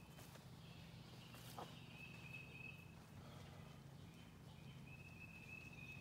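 Near silence: faint outdoor ambience with a steady low hum, a thin high tone that comes and goes, and a few faint taps.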